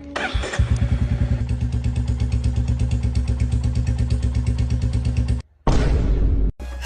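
Royal Enfield Bullet motorcycle's single-cylinder engine running with an even, rapid thumping exhaust beat. The sound cuts out about five and a half seconds in and comes back for under a second.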